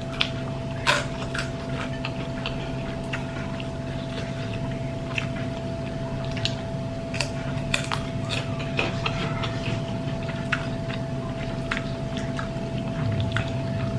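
A person eating: chewing, with scattered light clicks of utensils and dishes, over a steady hum.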